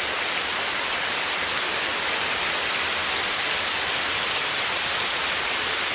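Heavy rain falling steadily, a dense even hiss of many drops with no let-up.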